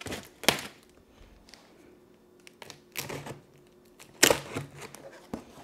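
Packing tape on a cardboard box being cut open, in a few short strokes; the loudest comes about four seconds in, with faint ticks between.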